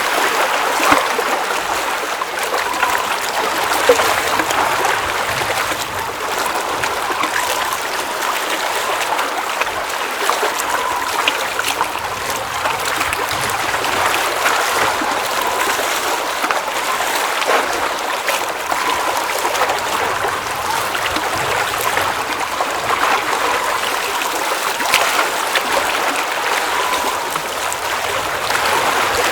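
Mountain lake water running and trickling in a steady babble, with small splashes.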